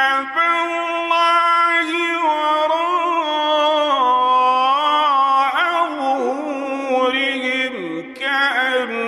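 A solo male reciter chanting the Quran in the melodic tajweed style, one long drawn-out phrase whose held notes bend up and down in ornamented runs, with a short break for breath about eight seconds in.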